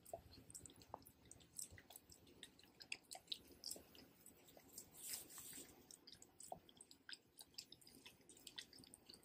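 Faint wet licking and gnawing as a pit bull works peanut butter out of the end of a hollow bone treat: many small irregular smacks and clicks of tongue and teeth.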